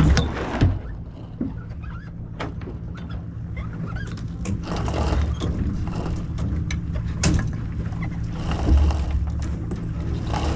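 Sailing dinghy under way: steady rushing wind and water noise, with scattered clicks and knocks from the boat's fittings and lines as the crew works.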